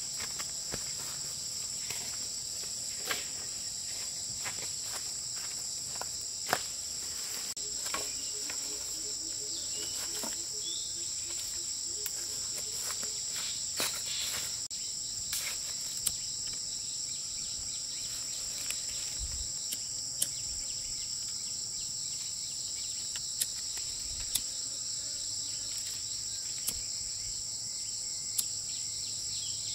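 Steady, high insect chorus shrilling without a break. Over it come scattered sharp snaps and clicks, every second or few, from dry branches and bamboo being dragged over grass and handled.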